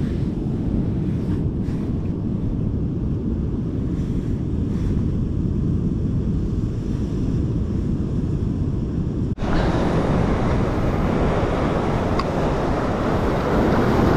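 Wind rumbling on the microphone over the steady wash of sea surf against rocks, dull and low at first. About nine seconds in it switches abruptly to a fuller, brighter rush of surf.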